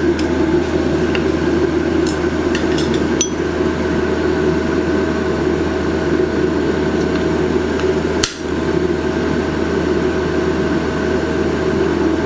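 Blacksmith's forge running with a steady rushing noise and low hum, with a few light metal clinks about two to three seconds in.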